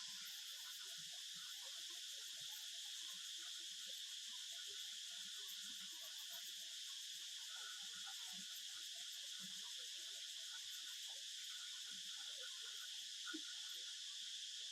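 Faint, steady, high-pitched insect chorus of the cricket kind, with soft scattered small noises beneath it.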